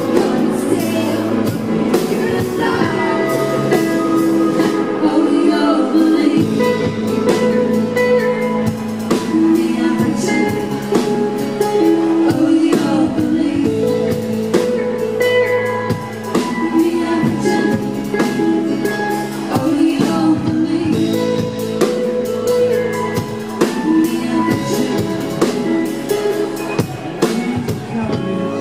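A live band playing an instrumental passage with guitar and a drum kit, the drums hitting steadily throughout.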